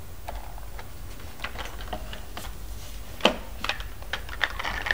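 Hard plastic toy train parts clicking and knocking together as they are handled and turned over: scattered light taps, with the sharpest knock about three seconds in and a quick run of clicks near the end, over a low steady hum.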